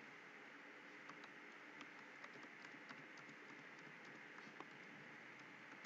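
Faint computer keyboard typing: soft, irregular key clicks over a steady low hiss.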